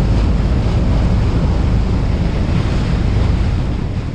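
Heavy wind buffeting the microphone over the rush of sea water past a small fishing boat under way: a steady, loud rumble strongest in the low end.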